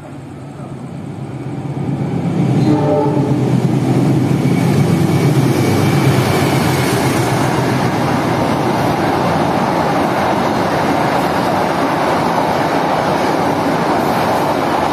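Passenger train running through a station at speed without stopping. The diesel locomotive swells in over the first couple of seconds with a low rumble, and then the carriages rush steadily past.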